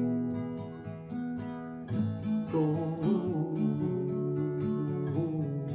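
Instrumental music accompanying a Christmas carol, with chords struck in a steady rhythm and no singing.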